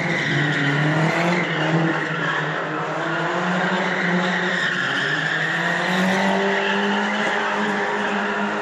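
A car's engine held at high revs, its pitch wavering slightly, while the tires squeal and skid continuously as the car spins donuts on concrete under a low roadway deck.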